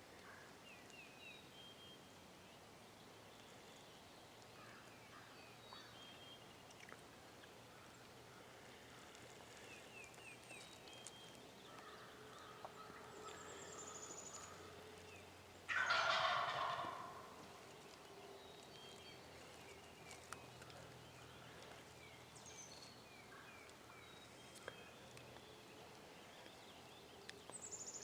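A wild turkey gobbles once, loud and close, about halfway through, a rattling call lasting about a second and a half, over faint songbird chirps.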